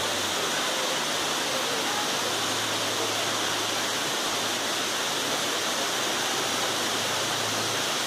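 Tall waterfall cascading down tiers of rock: a steady, even rush of falling water.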